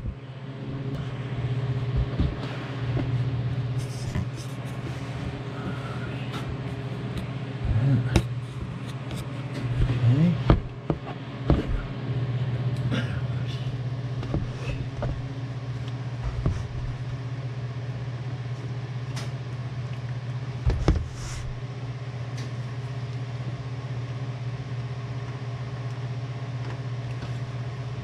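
A steady low hum, with scattered clinks and knocks of hand tools and metal parts being handled under a car. The knocks bunch up about eight to twelve seconds in and again about twenty-one seconds in.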